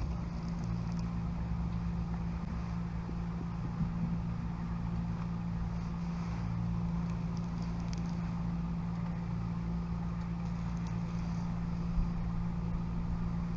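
Steady low hum of the fishing boat's motor as the boat moves slowly, over a haze of wind noise.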